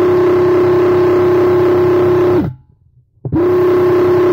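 Graco X-Force HD airless paint sprayer running with a steady, even-pitched hum while spraying paint. It cuts off about two and a half seconds in and starts again under a second later as the gun trigger is released and pulled again.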